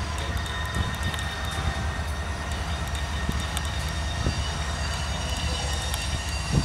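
Loaded coal hopper cars of a freight train rolling past: a steady low rumble of steel wheels on rail with scattered light clicks, and a faint high-pitched wheel squeal.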